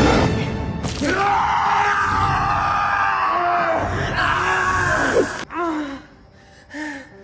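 A teenage boy screaming in pain as he is bitten: one long, wavering cry, then short pained groans and gasps that trail off near the end.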